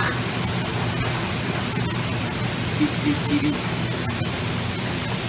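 Beef, vegetables and eggs sizzling on a large flat-top griddle, a steady hiss, with a few faint clicks of metal spatulas against the steel.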